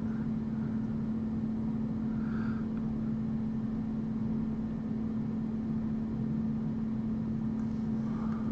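A steady machine hum with a constant low droning tone, unchanging throughout.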